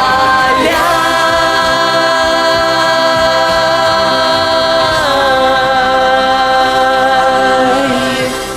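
End of a farewell song: singing voices hold a long final note over backing music, step down to a lower note about five seconds in, then fade out near the end.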